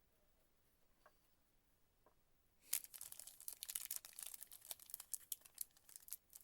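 Trading-card pack wrapper being torn open and crinkled, starting a little under three seconds in after a near-silent start.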